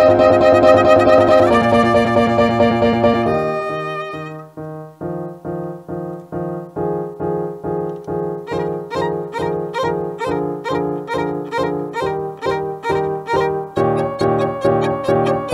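Violin with piano accompaniment playing a held chord, then a steady run of short repeated notes at about three a second.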